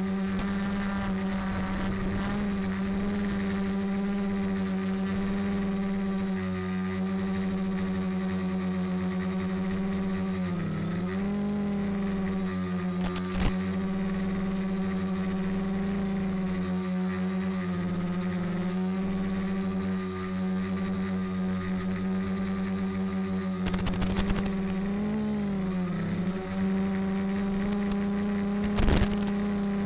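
Electric motors and propellers of a multirotor humming steadily, the pitch dipping briefly twice as the throttle eases. A few sharp crackles cut across the hum.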